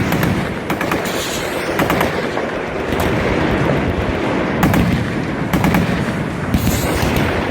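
Machine guns and other firearms firing together: continuous, overlapping bursts of rapid automatic fire.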